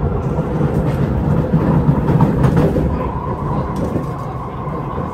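Cabin running noise of an SMRT C751B electric train at speed on an elevated track: a steady low rumble of wheels on rail that swells a little about two seconds in, with a few clicks and a faint steady whine in the second half.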